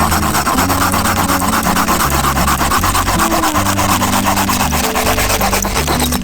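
Small hand saw cutting through firewood: a steady scratchy rasp of the teeth biting the wood, with background music underneath. The rasping stops near the end.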